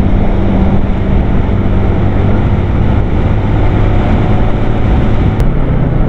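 Yamaha motorbike's engine running steadily at road speed, with heavy wind rush on the handlebar-mounted camera's microphone.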